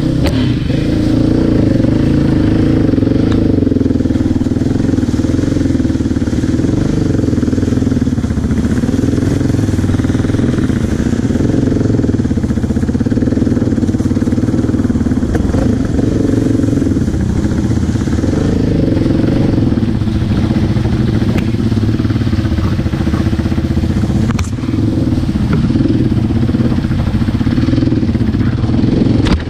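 Yamaha Raptor sport quad's single-cylinder four-stroke engine running steadily on a rough dirt trail, its revs rising and falling slightly. The engine sound dips briefly about 24 seconds in.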